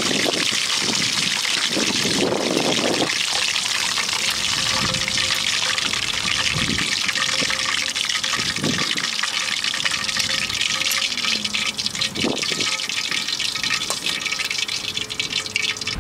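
Hot oil sizzling and crackling steadily in a frying pan on a portable gas stove, with a few knocks of tongs and spatula as a whole fried chicken is lifted out onto a plate.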